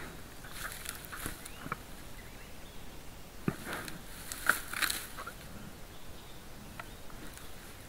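A brown bear moving and foraging through dry grass: soft rustling with scattered sharp cracks and snaps, the loudest a pair about four and a half seconds in.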